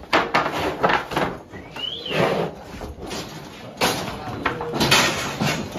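Knocks and rattles from a cattle squeeze chute as the cattle move and bump inside it, in several separate bangs, with a short rising squeak about two seconds in.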